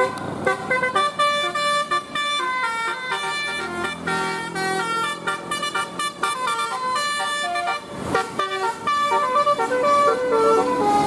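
Indonesian bus 'telolet' musical air horn playing a quick tune of stepped notes, with a short break about eight seconds in.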